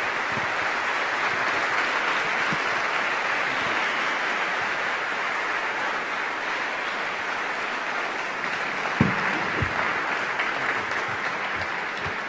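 Audience applauding steadily, the clapping slowly fading, with a couple of dull thumps about nine seconds in.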